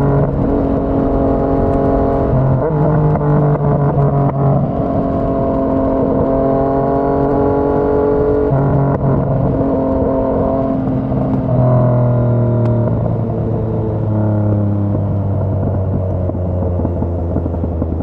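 Yamaha MT-09's three-cylinder engine through a Yoshimura R55 slip-on exhaust, heard while riding. The engine note holds fairly steady with small steps up and down, then falls slowly through the second half as the bike eases off.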